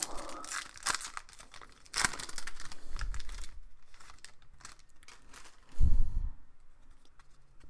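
A hockey card pack's wrapper being torn open and crinkled. About six seconds in comes a single dull low thump, the loudest sound here.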